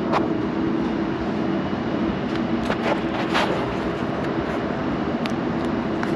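A machine running steadily, a continuous hum with a constant low tone, with a few sharp clicks scattered through it.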